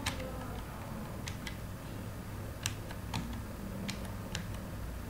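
Computer keyboard keystrokes: about seven or eight separate key clicks at a slow, uneven pace as a word is typed, over a low steady hum.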